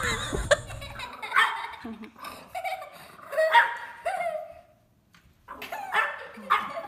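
French bulldog puppy yapping in short, high, yelping barks, in two spells with a brief pause between them.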